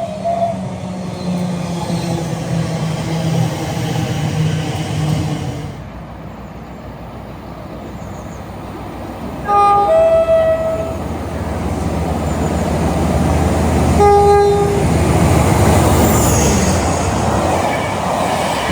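A train's two-tone horn sounds a high note then a lower one, and a second, shorter horn blast follows a few seconds later. Then comes the loud rush of a train passing at speed. Before the horns there is a steady drone from a train.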